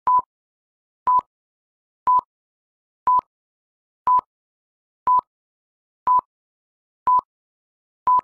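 Film-leader countdown beeps: nine short identical beeps at one steady pitch, one each second, each with a faint click at its start and end.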